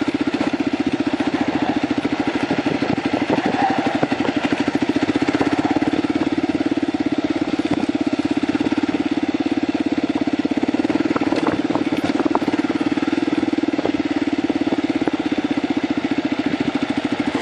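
Kawasaki KLR dual-sport motorcycle's single-cylinder four-stroke engine running steadily while riding a dirt trail at low speed, its firing strokes giving an even, fast pulsing note. A few light clicks and knocks come through about two-thirds of the way in.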